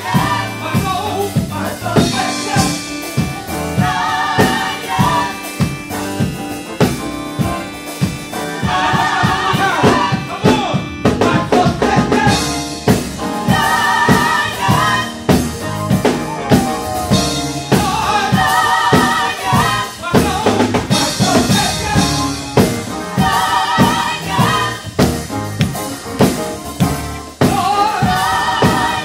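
Gospel vocal group singing live: lead and backing singers in repeated sung phrases over a drum kit.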